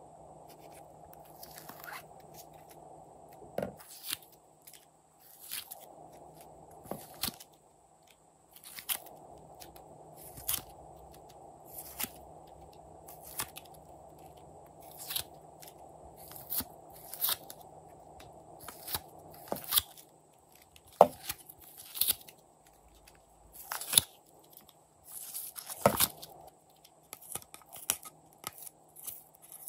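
Glossy slime and soft clay being handled and pressed by hand, giving sharp sticky crackles and pops about every second or so.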